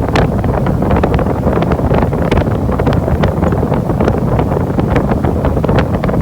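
Steady rush of air moving through an HVAC air-handling unit near its outdoor-air intake, buffeting the microphone, with frequent short crackles throughout.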